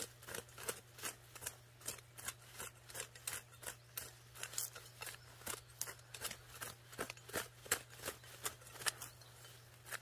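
Hand pruning shears snipping over and over: a steady series of sharp clicks, about three a second.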